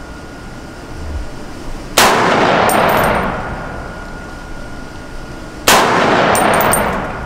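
Two shots from a Springfield Armory Saint Victor .308 semi-automatic rifle, about three and a half seconds apart, each followed by a long rolling echo and faint high clinks.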